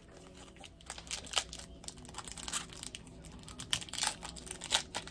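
Plastic trading-card pack wrapper being torn open and crinkled by hand: a run of irregular crackles that grows busier and louder in the second half.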